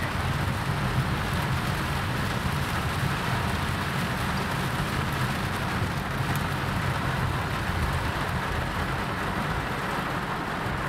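Heavy downpour pelting a moving car's roof and windshield, heard from inside the cabin as a steady hiss over a low rumble of engine and road noise.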